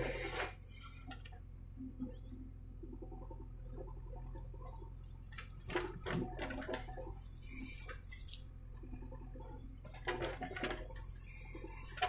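JCB backhoe loader's diesel engine running with a steady low hum while the rear bucket digs into a trench, with rough scraping and crunching of soil about half a second in, again around the middle and near the end.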